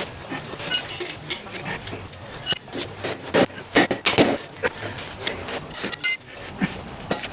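Tyre levers clinking and scraping against a motorcycle wheel rim while a tyre is worked over it by hand. Irregular knocks and scrapes, with three sharp, ringing metallic clinks.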